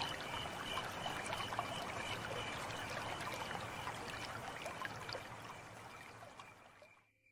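Faint running water, like a trickling stream, with a couple of thin steady high tones above it. It fades away and stops just before the end.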